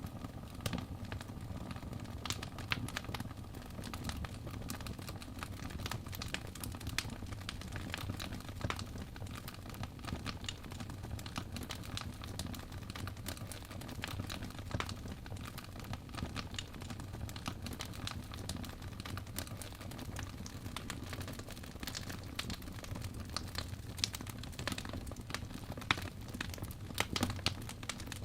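Fire in a fireplace crackling: frequent sharp pops and snaps over a low steady rumble of the flames, with the pops coming more often near the end.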